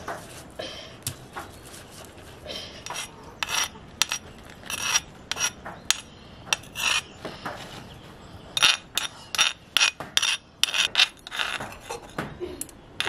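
A hand stone rubbing and grinding paste on a flat stone slab (a Nepali silauto and lohoro), then a metal spoon scraping the ground paste off the stone, in short irregular scrapes that grow louder and sharper in the second half.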